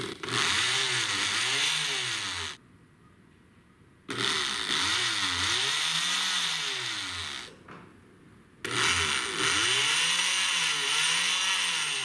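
Hyper Tough oscillating multi-tool's motor running in three spells of a few seconds each, its pitch rising and falling over and over, cutting out between spells. It runs only while a jumper wire bridges a cracked solder joint on its speed-control board, which shows that joint is the fault that killed the tool.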